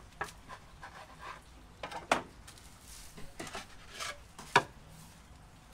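Wooden pizza peel knocking and scraping against a wood-fired brick oven as a pizza is slid in: scattered knocks and scrapes, loudest about two seconds in and again about four and a half seconds in.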